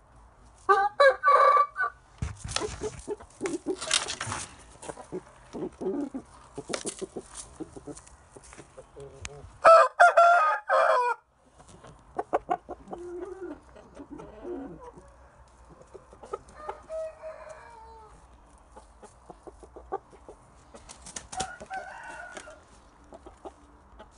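Asian game-breed rooster crowing twice, each crow about a second long: once near the start and once, the loudest, about ten seconds in. Softer clucks and short clicks and rustles come between and after.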